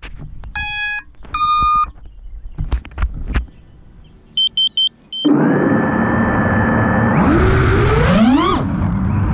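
FPV racing drone's electronics beeping: two long tones, then a quick run of short high beeps as it is armed. About five seconds in, its Garila 2406 2750kv brushless motors with DAL 5045 tri-blade props start spinning with a steady whine. Near the end they rev up with a rising pitch as throttle is applied for takeoff.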